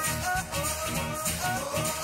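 Upbeat outro music with a steady beat and a melody of short, bright notes.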